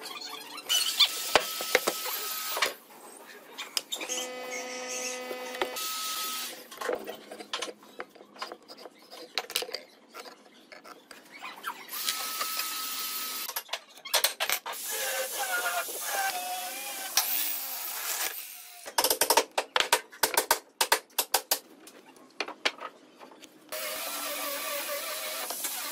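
Pencil scratching on pine as a beam is marked out against a steel square, with clicks and knocks of the square and the boards being handled, in short broken bursts. Near the end a hollow-chisel mortising machine's motor starts running steadily.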